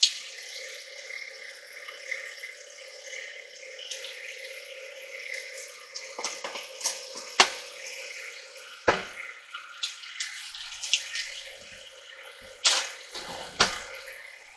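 Stand mixer running with a dough hook, kneading sticky bread dough in a stainless steel bowl: a steady motor hum with wet slapping and irregular sharp knocks as the dough hits the bowl, the knocks louder and more frequent in the second half.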